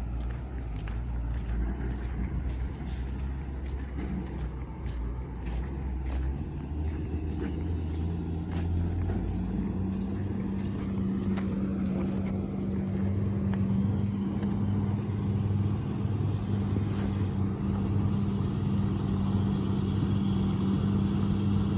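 Heavy diesel engine running steadily, its speed stepping up about seven seconds in and then held higher, with faint clicks and knocks in the first half.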